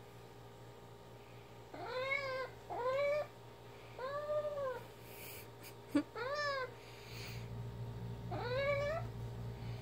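Ginger domestic cat meowing five short times, each meow arching up and down in pitch, as she waits for her fetch toy to be thrown. A single sharp click comes about six seconds in.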